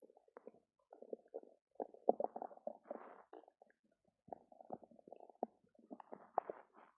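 A human stomach rumbling and gurgling in irregular runs of bubbly pops with short pauses between them. The uploader puts the upset down to having drunk two cartons of yogurt.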